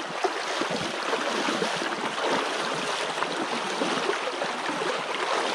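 Shallow rocky stream running over stones, a steady rush of water, with the splashing of wader boots stepping through the shallows.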